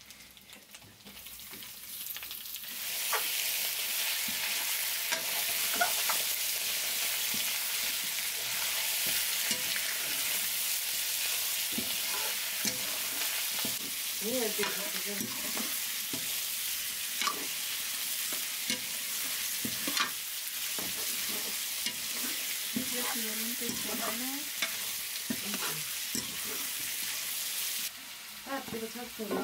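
Raw chicken pieces sizzling in hot oil in a metal pan, building about two seconds in as the meat goes in, then frying steadily while a metal spatula scrapes and clinks against the pan as it is stirred. The sizzle drops off near the end.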